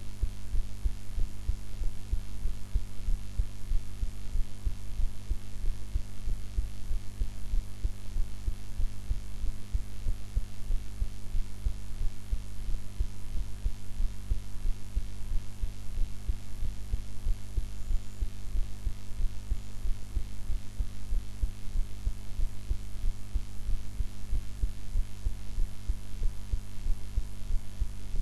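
A woman's own heartbeat, recorded close up: a steady, regular run of low beats over a constant hum of recording noise.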